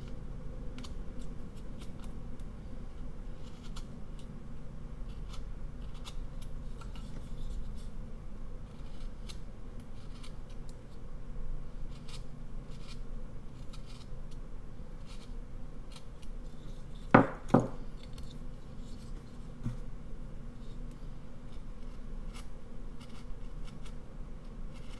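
Carving knife paring basswood in short, irregular strokes, each cut a small crisp snick. Two sharp knocks in quick succession about two-thirds of the way through.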